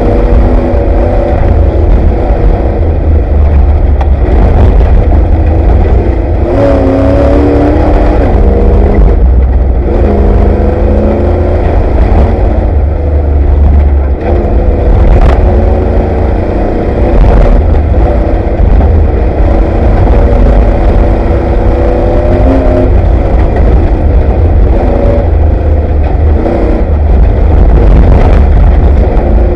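Off-road race vehicle's engine heard loudly from inside the vehicle, its pitch rising and falling as it is driven hard, over a heavy low rumble, with a few sharp knocks and rattles.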